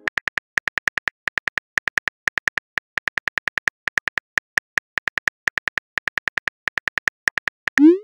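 Smartphone keyboard key-click sound effects: a fast, uneven run of short identical clicks, about five a second, as a text message is typed. Near the end comes a short rising swoosh as the message is sent.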